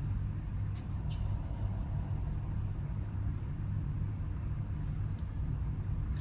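Steady low rumble of outdoor recording noise, with faint, barely audible higher sounds about a second in; the distant screams, which one viewer took for a timber wolf bark-howling, are hard to hear.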